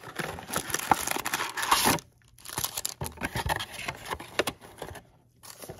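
A trading-card pack's wrapper being torn open and crinkled by hand, in two spells of crackling with a short pause about two seconds in.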